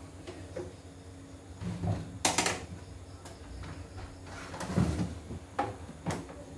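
Knocks and plastic clatter of a computerized embroidery machine being handled on a wooden workbench as its embroidery unit is shifted: a louder rattle a little over two seconds in, then several more separate knocks near the end.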